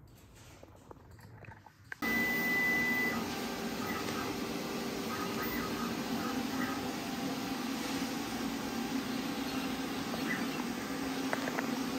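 Near silence, then about two seconds in a Langmuir Systems CNC plasma table starts up: a brief high beep, then the steady hiss and hum of the plasma torch cutting a bracket out of steel plate, with a few clicks near the end.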